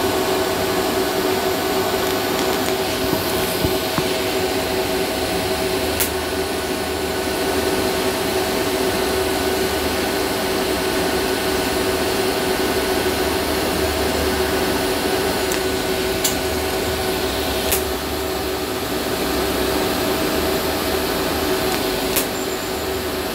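TIG welding arc running on the seam of a sheet-metal egg-shaped fuel tank: a steady hiss with a constant hum, and a few faint clicks along the way.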